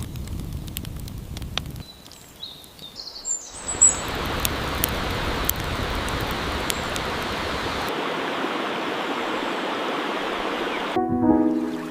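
Waterfall rushing steadily, taking over after a short low rumble and a few high bird chirps. Near the end a brief pitched hum breaks in.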